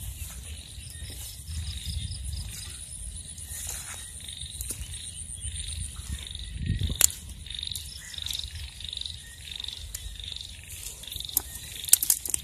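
Night chorus of insects and frogs: a high, steady insect trill, with a call repeating about twice a second in the second half. Underneath are footsteps and rustling through grass and weeds, with a sharp snap about seven seconds in and a few more near the end.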